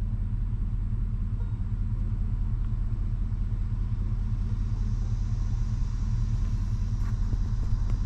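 A vehicle engine idling: a steady low rumble.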